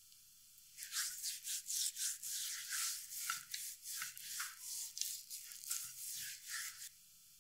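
A hand rubbing dry seasoning into raw goose skin: quick rustling strokes, about three a second, starting about a second in and stopping shortly before the end.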